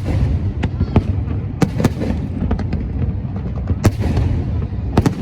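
Aerial fireworks going off: an irregular series of sharp bangs, several in quick succession, over a continuous low rumble.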